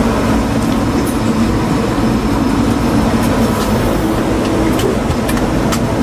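Steady loud rumble and rushing noise of a submarine's onboard machinery and ventilation, with a few faint clicks.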